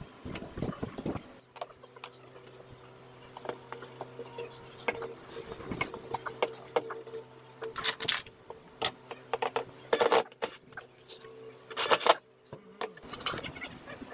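Cordless drill running with a steady buzzing hum, starting about a second in and stopping near the end, with clicks and a couple of sharper knocks from handling the plywood parts.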